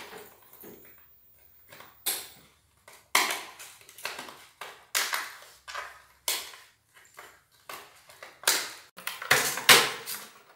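Pomeranian puppy chewing and shoving a plastic bowl on a tiled floor: irregular clattering knocks and scrapes of plastic on tile, about one a second and bunched and loudest near the end.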